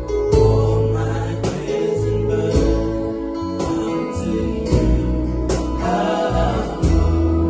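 Small gospel worship band playing a slow devotional song: keyboard, guitar and bass sustaining chords, with a percussion hit about once a second.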